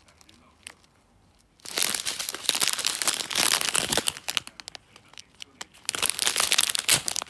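Small clear plastic zip bags of diamond-painting drills crinkling as they are handled, in two spells: one starting about a second and a half in, another near the end.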